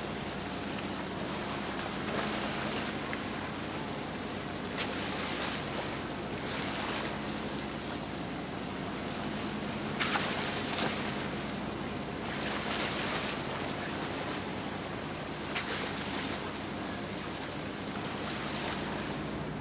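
Water rushing and splashing along the hull of a moving boat, with surges of spray every few seconds over a steady low engine hum.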